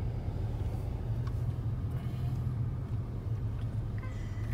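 Car driving slowly, heard from inside the cabin: a steady low rumble of engine and tyre noise.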